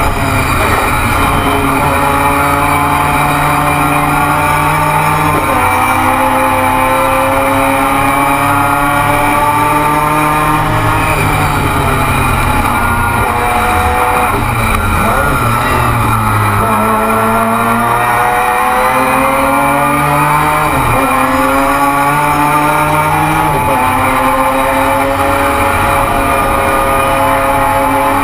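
Mazda 13B rotary race engine at full throttle, heard from inside the cockpit. Its pitch climbs steadily and drops sharply at each upshift, about five times. Around the middle the pitch falls away under braking and then climbs again through the gears.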